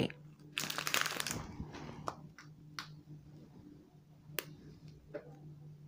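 Clear plastic packets of diamond-painting drills crinkling briefly as they are handled, then a few light, scattered clicks, over a low steady hum.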